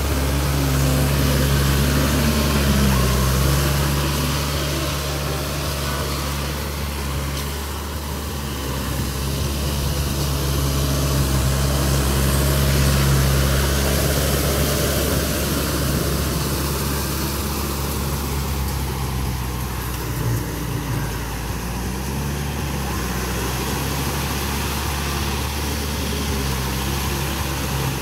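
Yanmar YM351A tractor's diesel engine running steadily under load as its rotary tiller churns through a flooded, muddy paddy field, with a constant hiss of churned mud and water over the low engine note.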